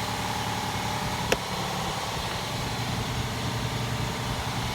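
2008 Honda Fit's four-cylinder engine idling steadily, its exhaust still cracked at a fresh, unsealed weld. A single sharp click a little over a second in.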